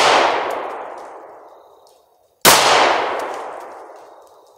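Two handgun shots about two and a half seconds apart, the first right at the start, each followed by a long echoing decay that dies away over about two seconds.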